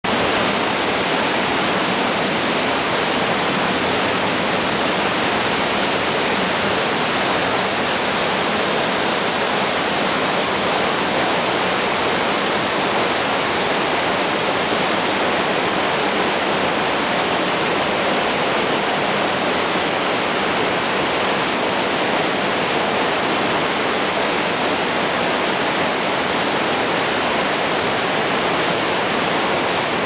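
A mountain stream cascading over boulders: a steady, loud rush of water that does not change.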